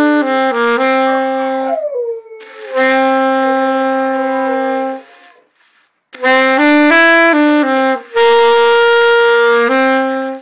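Saxophone playing slow phrases of held notes, with a dog howling along over the first two seconds or so, its howl sliding down in pitch before it stops. The saxophone pauses for about a second near the middle, then plays on.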